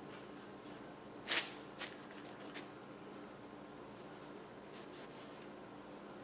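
Tissue paper rustling and crinkling as it is handled, in a few short bursts, the loudest about a second in.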